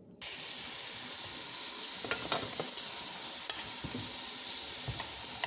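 Chopped onions frying in hot oil in a pan: a steady sizzle that starts abruptly just after the beginning, with a few light clicks.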